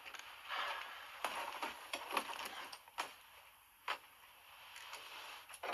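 Quiet shuffling and light irregular knocks of people moving about, like footsteps on a floor, with a sharper knock near the end.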